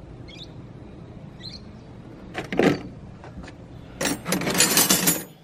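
A metal drawer of a Sears five-drawer rolling tool chest being worked, with hand tools clattering inside: a short clatter about halfway through, then a longer scraping rattle as the drawer slides, about four seconds in.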